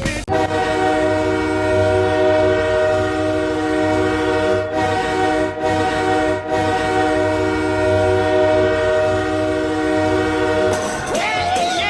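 Ice hockey arena goal horn, a multi-tone air horn, sounding one long steady chord for about ten seconds. Near the end it stops and the goal song comes in.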